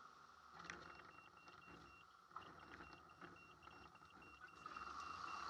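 Faint, muffled engine and propeller noise of a Maule M7-260 on its takeoff roll, heard from inside the cockpit, with scattered rattles and clicks. A short high beep repeats several times a second, and the engine noise grows louder near the end.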